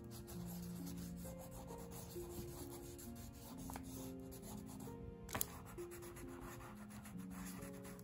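Watercolor crayon scribbling back and forth on journal paper, a dry scratchy rubbing, over soft background music of held notes. There is a single sharp tap about five seconds in.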